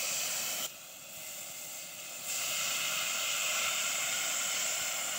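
Water poured into a hot metal pot of vegetables frying in butter, hissing and sizzling as it hits and turns to steam. A short burst of hiss at the start, then a longer, louder one from about two seconds in.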